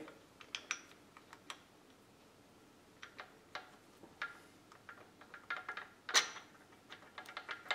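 Small, irregular metallic clicks and taps, the loudest about six seconds in, as a keyed steel shaft is wiggled into the tightly fitted gears of a boring and facing head, a slip fit of a thousandth of an inch or less.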